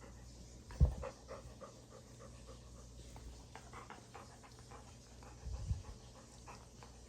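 Chocolate Labrador retriever panting, about three breaths a second. A sharp low thump comes about a second in, and a smaller low double thump comes later.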